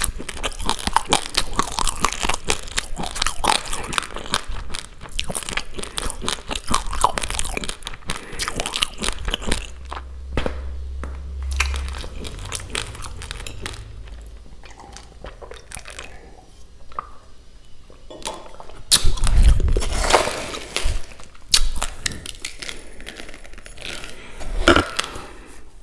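Close-miked crunching and chewing of raw basmati rice grains: dense, rapid crunches for the first half, easing off in the middle. In the last third come a few louder sharp knocks and scrapes as a steel spoon scoops more rice from a plastic bowl.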